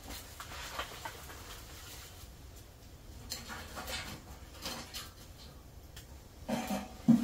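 Sticks rustling, scraping and tapping against a small stainless wood stove as they are fed into its firebox: a handful of soft, scattered clicks over a quiet background.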